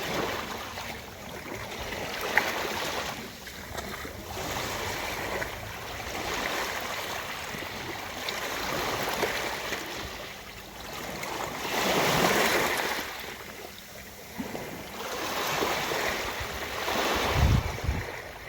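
Ocean waves washing onto the shore, a hiss that swells and fades every few seconds, the biggest surge about two thirds of the way in. A brief low thump comes near the end.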